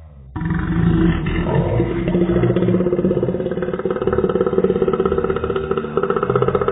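A woman's long, very loud burp: a rough, pitched belch that starts suddenly about half a second in and carries on without a break.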